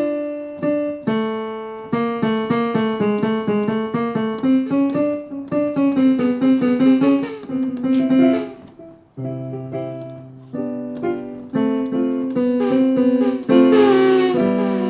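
Casio Privia PX-750 digital piano playing a run of quick single notes and short phrases through its own speakers, with a low note held for about a second near the middle. The notes carry an unwanted accompanying background sound, which the repairer puts down to a mainboard software fault.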